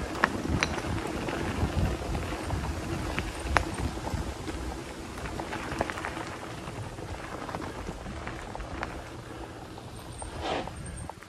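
Mountain bike rolling fast over a packed dirt trail: a steady rumble of the tyres, with frequent small knocks and rattles from the bike as it goes over bumps.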